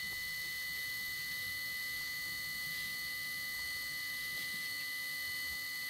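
Lathe running steadily with an even, high-pitched whine while a radius-turning tool cuts the end of an aluminium rod.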